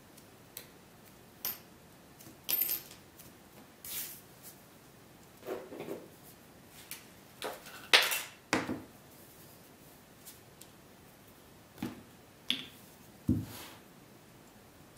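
Light clicks and metallic clinks as steel sewing needles and small tools are handled and set down on a cutting mat. Near the end, a few heavier knocks as a hammer strikes leather laid on a wooden block.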